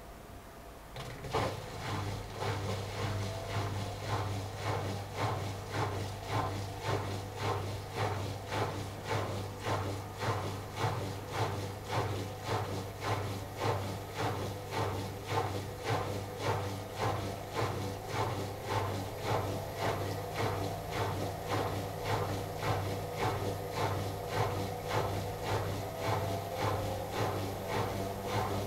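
AEG Lavamat front-loading washing machine in its last rinse-and-spin stage: about a second in a steady low hum starts, and the drum turns with a rhythmic swish about one and a half times a second, while a faint motor tone slowly rises in pitch.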